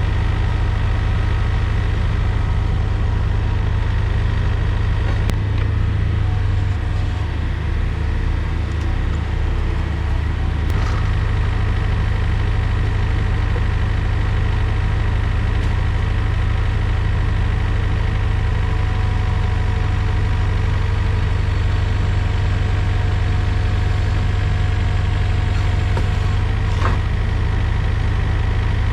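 Takeuchi TB145 mini excavator's diesel engine running steadily at idle, its note dipping slightly for a few seconds about seven seconds in, with a few faint clicks over it.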